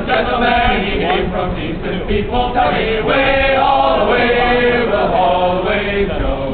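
A group of men singing together, unaccompanied.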